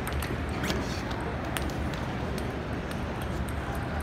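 Table tennis balls clicking off tables and paddles at irregular moments from many games around the hall, over a steady low background hum.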